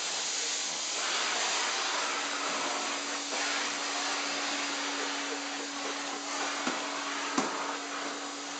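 Vacuum cleaner running with its wand and brush nozzle drawn through a long-haired dog's coat: a steady rushing suck with a steady motor hum under it. Two brief knocks come late on.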